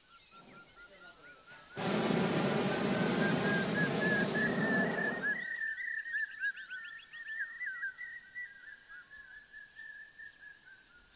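A hot-air balloon's propane burner firing in one blast of about four seconds, starting a couple of seconds in. Birds chirp over and after it.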